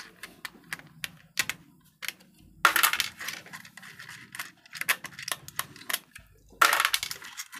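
Metal tool clinking and scraping on the bolted steel flange of an electric water heater's heating element while it is being taken out. There are scattered light ticks and two longer scraping sounds, about two and a half seconds in and near the end.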